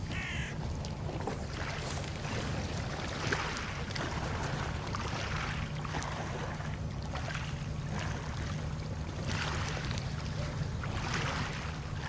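Small waves lapping at the shore in soft washes every second or two, over a steady low wind rumble on the microphone; a brief high squeak right at the start.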